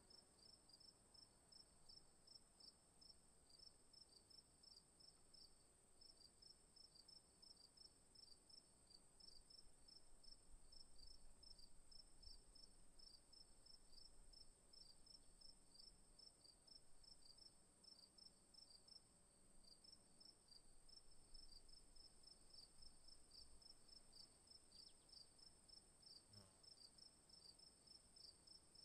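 Very faint crickets chirping: a rapid, even run of short high chirps over a steady high-pitched hum.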